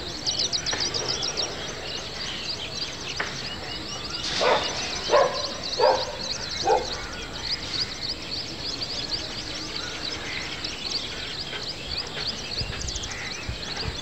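Outdoor ambience of many small birds chirping in a dense, rapid, high-pitched chorus. A little before the middle, a louder, lower animal call rings out four times, each under a second apart.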